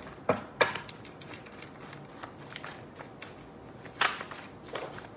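Tarot cards being handled and shuffled: a couple of sharp card snaps near the start and a louder rustle of the deck about four seconds in.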